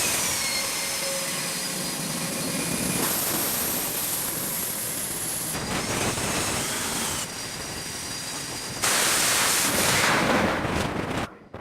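Jet engine noise: a loud rushing with high-pitched turbine whines, changing abruptly several times as shots cut, then dropping away near the end.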